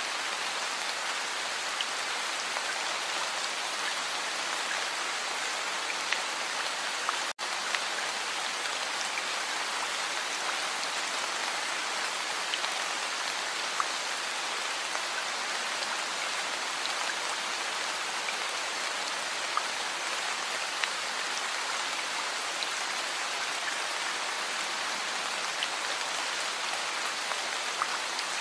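Heavy rain falling steadily: a dense, even hiss with scattered sharper drop ticks. The sound cuts out for an instant about seven seconds in.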